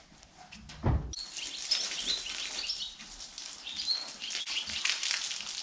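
A hose spraying water, a steady hiss that starts about a second in, just after a low thud. Small birds chirp over it.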